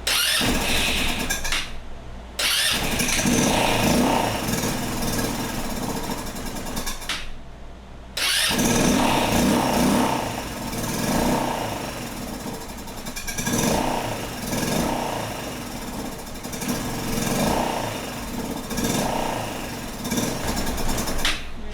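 GY6 150cc four-stroke scooter engine running roughly, breaking off twice and picking up again, then rising and falling in revs every second or so as the throttle is worked to keep it from dying: a hard-starting engine that won't hold an idle, which the mechanic puts down to a fuel mixture problem.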